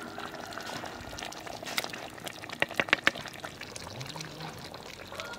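Wooden ladle stirring thick, hot chicken curry in a cooking pot: wet sloshing and slurping of the gravy, with a few sharp knocks of the ladle and pot around the middle.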